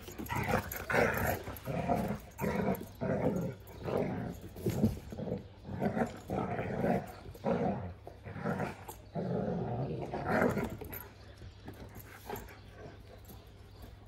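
Two young Kangal dogs play-fighting, growling at each other in repeated short bursts that die down about eleven seconds in.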